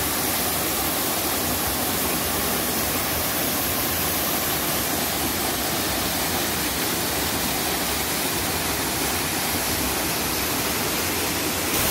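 Small waterfall pouring over rocks, a steady rush of falling water.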